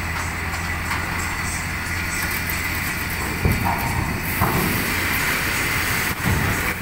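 Heavy diesel truck running as it rolls down a ferry's steel ramp, a steady low drone, with a few clanks and thumps as wheels cross the ramp plates about three and a half, four and a half and six seconds in.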